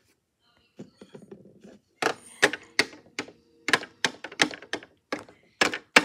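Plastic parts of a toy washing machine being handled: a soft rustle about a second in, then a run of sharp light clicks and knocks, two or three a second.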